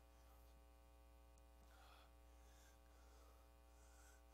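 Near silence: faint room tone with a steady low electrical hum.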